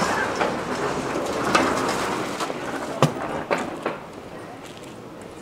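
A train's running noise fading away as it moves off, with a few sharp clicks and knocks, dying down about four seconds in.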